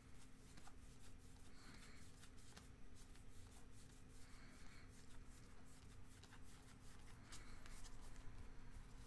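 Faint flicks and slides of 2019 Topps Gypsy Queen baseball cards being thumbed through one at a time in the hands, card stock on card stock.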